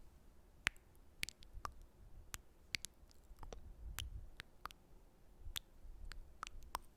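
Close-miked sticky mouth sounds: scattered wet clicks of lips and tongue, about a dozen at uneven intervals.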